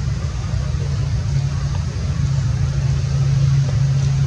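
A low, steady engine hum, like a vehicle idling, that grows louder about a second in and holds.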